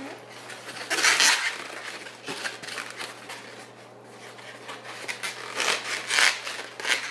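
Latex modelling balloons rubbing against hands and each other as they are twisted and shaped, in noisy rustling bursts, loudest about a second in and again near the end. A steady low electrical hum runs underneath.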